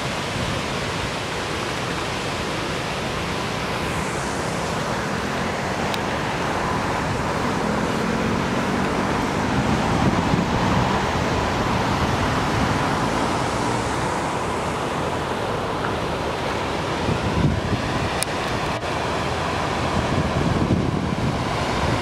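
Steady rushing of a waterfall: water pouring in several streams over rock ledges, a continuous even wash of noise.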